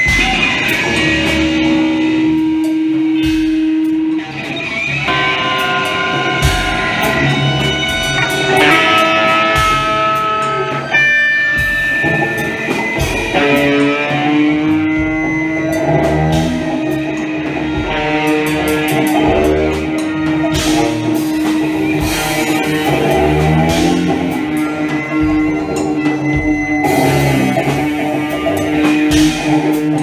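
Live experimental improvisation for cello, percussion, guitar and electronics: long held tones, including a low sustained note from about halfway through, over scattered drum and percussion hits and plucked guitar.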